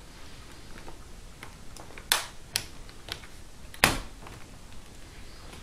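Plastic screen bezel of a Gateway NV78 laptop snapping onto the lid: a few sharp clicks as its clips seat, with fainter ticks between, the loudest about four seconds in.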